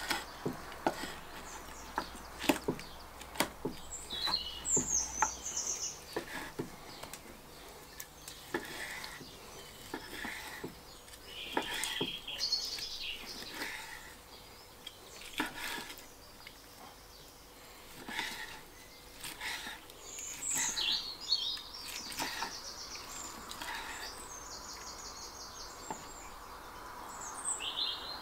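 Knife slicing a grilled bone-in sirloin steak on a wooden chopping board, the blade knocking and clicking on the board at irregular moments. Birds chirp now and then in the background.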